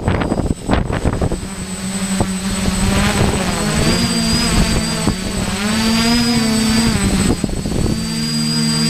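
DJI FPV drone's propellers and motors buzzing as it flies. The first second has wind rushing over the microphone, then a steady buzz with a thin high whine that rises and falls a little in pitch as the throttle changes.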